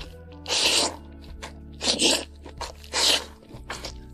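Close-miked crunching and chewing as a fresh spring-roll-wrapper roll filled with mixed cold vegetable salad is bitten into and eaten: three loud crisp crunches about a second apart, with softer chewing between, over soft background music.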